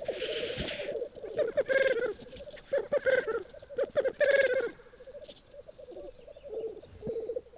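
Male black grouse at a lek: the low, pulsing bubbling song of displaying cocks, with a hissing call at the very start and louder calls breaking in about two, three and four and a half seconds in. The bubbling thins for a couple of seconds near the end, then picks up again.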